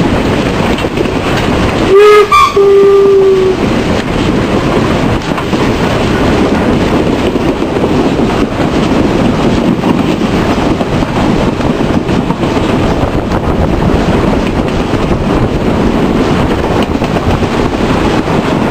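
Steam locomotive V-820 running along the line, heard close up from its side. About two seconds in, its steam whistle sounds a short blast followed straight on by a longer one of about a second.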